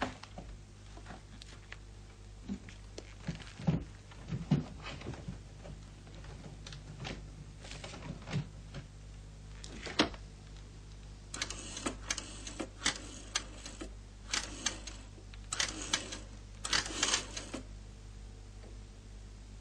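Desk telephone being handled: scattered clicks and knocks, then from about halfway a run of quick mechanical clicking bursts as the phone is worked to place a call, over a steady low hum.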